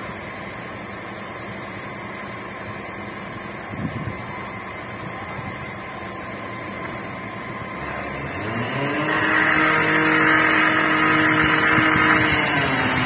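A vehicle engine over a steady drone: about eight seconds in it rises in pitch and gets louder, holds high for several seconds, then drops back near the end. A brief knock about four seconds in.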